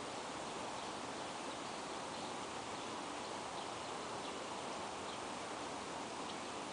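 Steady outdoor background hiss, with faint short high chirps about once a second.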